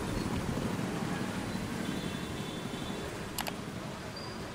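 Steady hiss and low rumble of a vehicle driving on a rain-wet road, with a single sharp click about three and a half seconds in.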